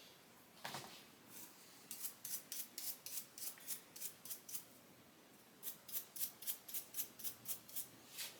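Nylon brush scrubbing a sharpened clipper blade's teeth in quick strokes, about four or five a second, clearing grinding grit from between the teeth. The strokes come in two runs with a short pause near the middle.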